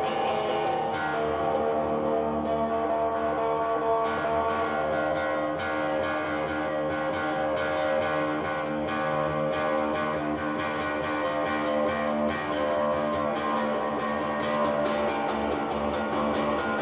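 Electric guitar being played: several notes sounding at once, picked and left to ring on.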